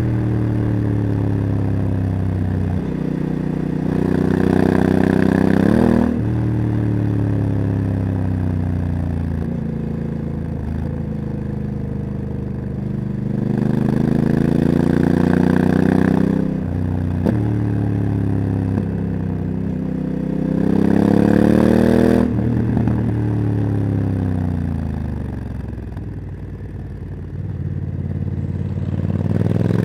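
Honda CRF1100 Africa Twin's parallel-twin engine heard while riding a winding mountain pass. The revs climb under acceleration and drop suddenly at each shift of the dual-clutch gearbox, about three times. Between these the engine note slides down in long falls as the bike slows for bends, with a steady rush of wind underneath.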